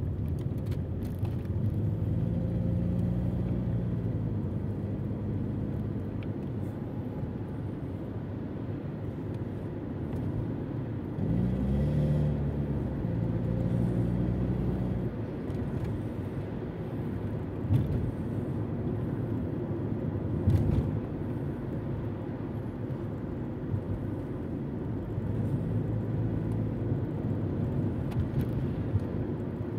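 Car engine and road rumble heard from inside the cabin while driving, the engine note rising as the car accelerates about eleven seconds in. A couple of short knocks stand out later on.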